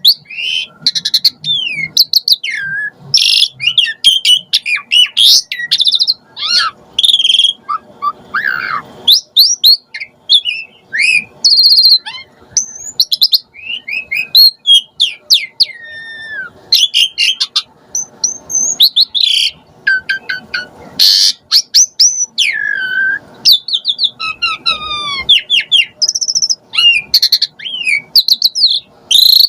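Asian pied starling (jalak suren) singing a long, varied song without pause: quick whistles, rising and falling glides, fast clicking trills and short harsh chatters, changing every second or so.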